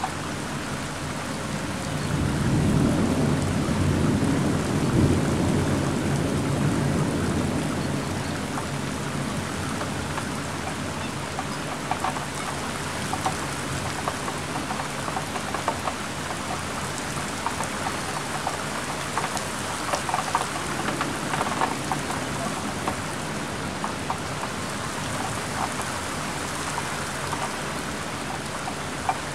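Heavy rain falling steadily in a thunderstorm, with a long roll of thunder rising about two seconds in and fading away over the next several seconds. Later, scattered drops tick sharply on a surface close by.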